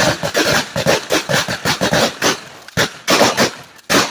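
Shotgun fired in a fast string, several sharp bangs a second with short gaps between them.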